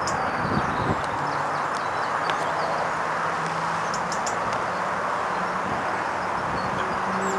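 Underfloor diesel engine of a first-generation diesel multiple unit running with a low, steady hum as the railcar moves slowly along the track. Birds chirp now and then.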